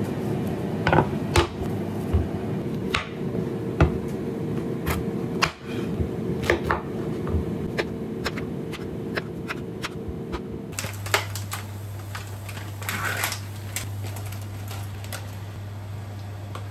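Kitchen knife chopping a zucchini on a wooden cutting board: irregular sharp knocks of the blade striking the wood. About two-thirds of the way through this gives way to a steady low hum and a few clinks of a utensil in a pot.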